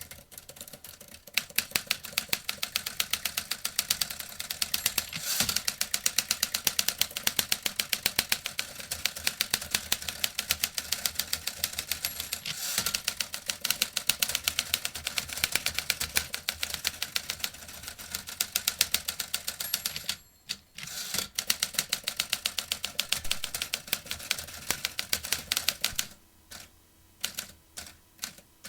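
Vintage typewriter keys clacking in a fast, steady run of keystrokes. The typing stops for about a second two-thirds of the way through, then resumes, and thins to slower, scattered keystrokes near the end.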